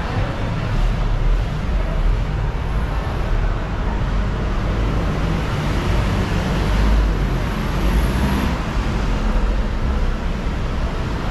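City street traffic noise: a steady rumble of vehicles on the road.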